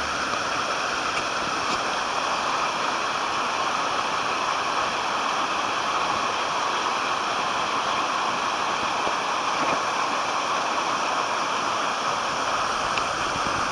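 Mountain stream rushing, a steady, even sound of running water.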